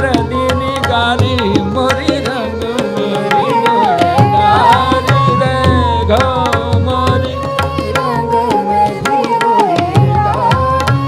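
Indian classical-style devotional music: tabla strokes keeping a steady rhythm under a melody that bends and glides in pitch, over a steady drone.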